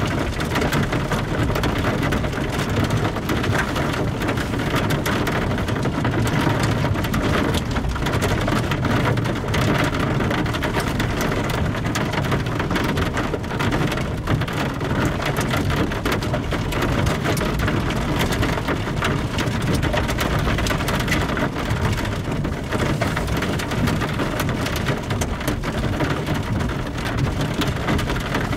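Heavy rain mixed with hail falling steadily: a dense, even patter of many small hits that keeps up without a break.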